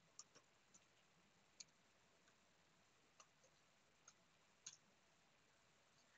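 Near silence with a handful of faint, irregular key clicks from a Samsung Chromebook keyboard as a login name and password are typed.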